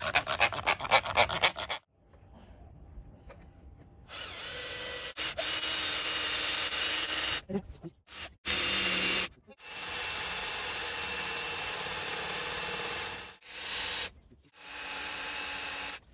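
A brief run of rapid scraping strokes from a hand tool, then a power tool running in several bursts of a few seconds each, stopping and starting. The tool is cutting pieces off a metal gate lock to make it fit.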